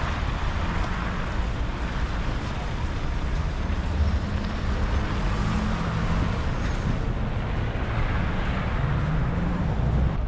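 City street traffic: cars passing, their engine and tyre noise swelling and fading over a steady low rumble.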